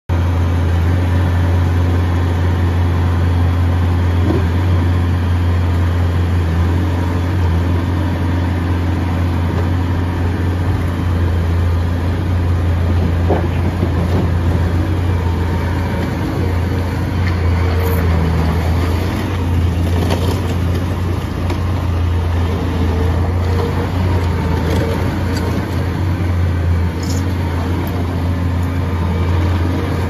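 Bobcat T595 compact track loader's 74 hp Doosan diesel engine running steadily as the machine drives on its rubber tracks.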